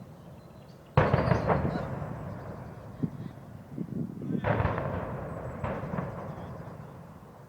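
Distant demolition explosions: a sudden heavy boom about a second in that rolls away over a few seconds, then two more booms close together a few seconds later.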